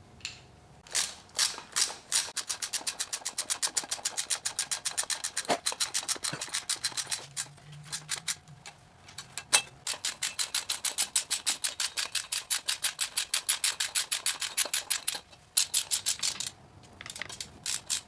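Socket ratchet clicking in quick, even runs of about five or six clicks a second as the thermostat housing bolts are run down, with short pauses about seven and fifteen seconds in.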